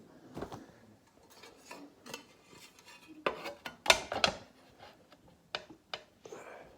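Small hard parts being handled on a workbench: scattered clicks and light clattering of plastic and metal pieces, with the loudest knocks a little past the middle.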